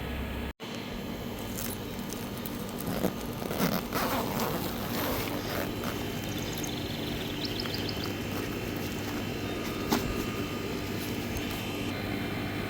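Canopy carrying bag being handled and zipped closed: fabric rustling and scraping around three to five seconds in, a zipper running, and one sharp knock near the end.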